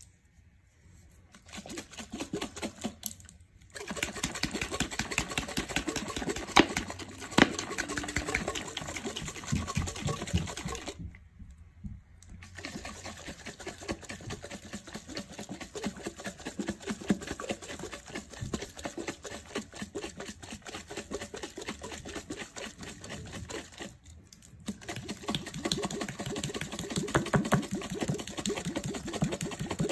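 Glass mason jar shaken hard by hand, a lump of homemade butter and ice-cold water sloshing and knocking inside in a fast rhythm with a few short breaks. This is the rinse that washes the last buttermilk out of the butter.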